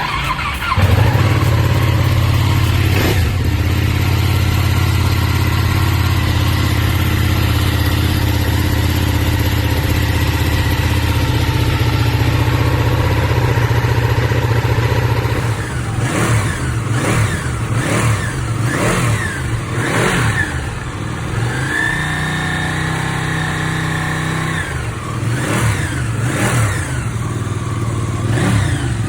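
Ducati 959 Panigale's 955 cc Superquadro L-twin engine catching about a second in and running at a steady fast idle. About halfway through it is blipped repeatedly, each rev rising and dropping back, with a short idle between blips.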